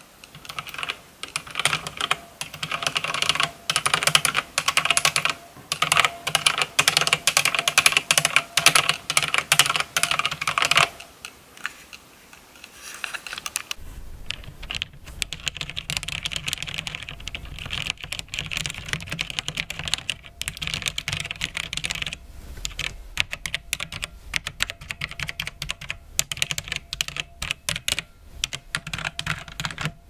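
Rapid typing on a mechanical keyboard with brown switches, a dense run of keystroke clicks. It stops for about three seconds near the middle, then starts again more softly over a low steady hum.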